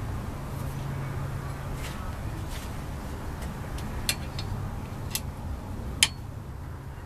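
Three sharp metal clicks, the last the loudest, as the tool rest of an old cast-iron wood lathe is handled and set in place, over a steady low hum.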